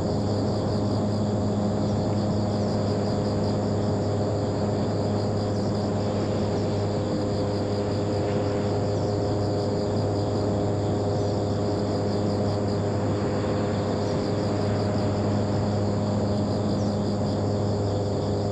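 Electric motor and propeller of a homemade FT Simple Cub RC plane running at steady throttle in flight, a constant hum with no change in pitch. A high, rapid chirping, like insects, runs along with it.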